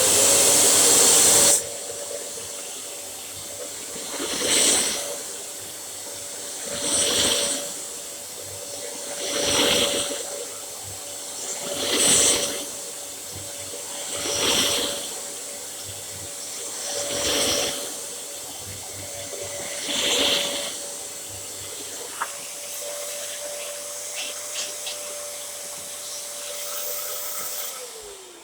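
Dyson DC07 upright vacuum cleaner running, a steady motor whine with a rush of air, opening with a loud burst for about a second and a half. The sound swells and eases about seven times, roughly every two and a half seconds. Near the end it is switched off and the whine falls away.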